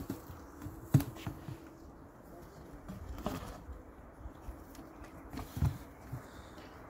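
Used car tyres being dropped and stacked: dull rubber thumps, the loudest about a second in, with others near the middle and later on.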